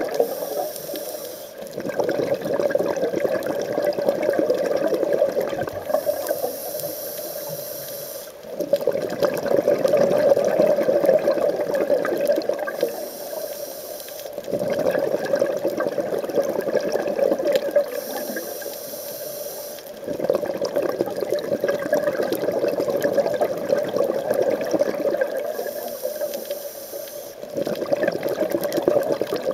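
A scuba diver's regulator breathing, heard underwater. A hissing inhale comes five times, each followed by several seconds of bubbling, crackling exhaust.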